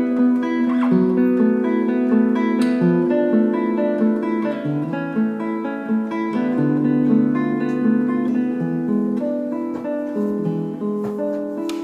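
Background music of plucked acoustic guitar, a steady run of notes.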